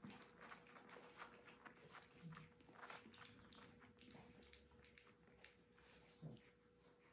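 French bulldog puppies licking and lapping soft food off silicone lick mats: a faint, irregular run of wet smacks and clicks. A steady faint hum lies underneath, and there is a brief low grunt near the end.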